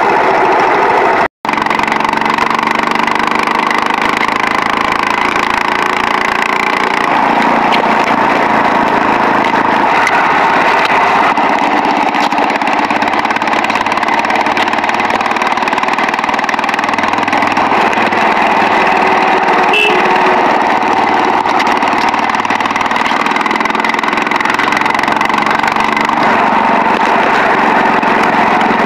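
Motorcycle engine running steadily as the bike rides along a road. The sound cuts out briefly about a second in.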